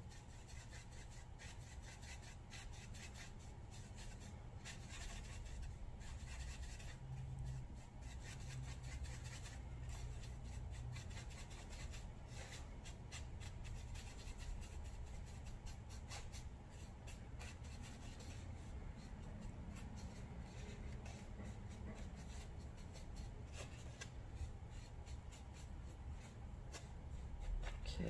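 A paintbrush mixing and scrubbing paint on a plastic paint tray: faint, scattered rubbing and scratching, over a low steady hum.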